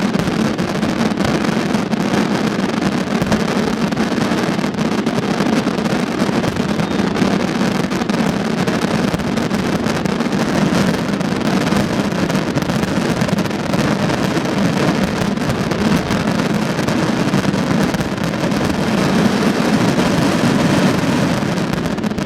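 Dense fireworks barrage, so many shells bursting at once that the bangs and crackle merge into one continuous loud din, typical of a display's finale; it drops off sharply at the very end.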